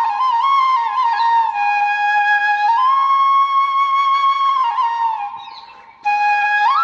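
Background music: a solo flute melody of long held notes and small steps in pitch. The phrase fades away about five seconds in, and a new one starts near the end.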